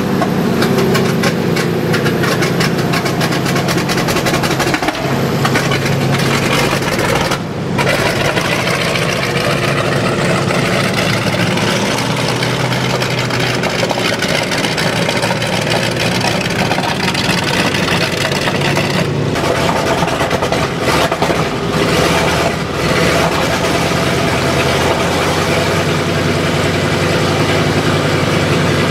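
The Wright Continental R975 C4 nine-cylinder radial engine of an M4A1 Sherman tank running steadily just after startup, while it is still smoking heavily.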